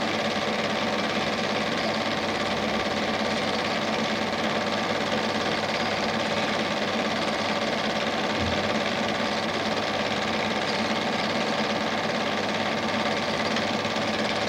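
Standard 8 cine projector running steadily during the film transfer: an even mechanical whirr with a constant hum.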